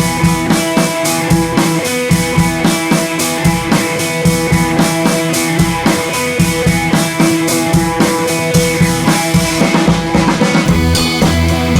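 Background rock music with a steady drum-kit beat and guitar.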